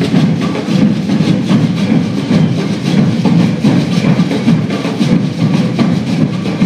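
Maracatu drumming: a massed percussion group beating a fast, steady rhythm on deep alfaia bass drums.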